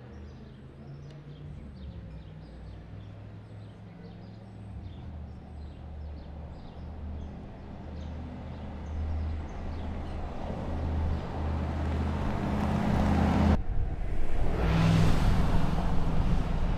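A 2019 Mercedes-AMG G 63's twin-turbo V8 running as the SUV approaches, growing steadily louder, with faint bird chirps at first. After an abrupt cut, the engine is loud and close as the vehicle drives past.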